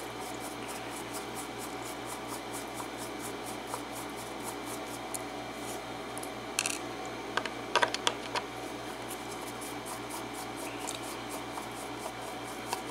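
Small handling sounds over a steady faint hiss: light scratching and ticking from hands working with the lock and tools, with a quick cluster of sharp clicks a little past the middle.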